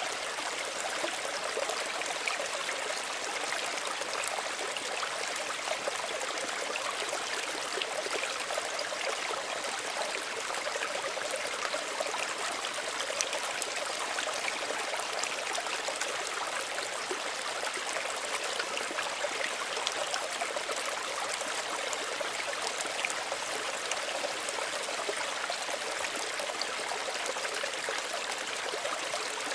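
Small stream running steadily over stones, a continuous gentle splashing and trickling with no lulls.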